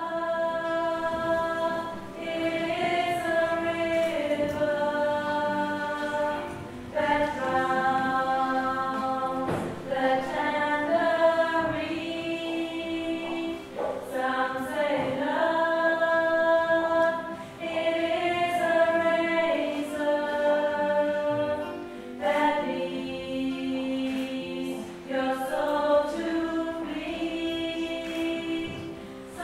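A choir singing a cappella: slow phrases of long held chords, several voices together, with short breaks between phrases.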